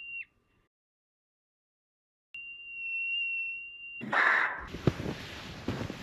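Yellow-bellied marmot alarm whistles, one steady high pitch. One whistle ends just after the start, and after a silent gap a second, longer one begins a little over two seconds in. Near the end a burst of hiss gives way to crunching with scattered clicks.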